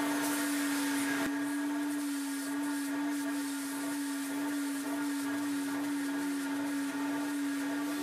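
Hot-water carpet extractor running with a steady motor whine as its clear upholstery tool is pulled across a cloth car seat, sucking the cleaning solution and dirty water back out. A single click about a second in.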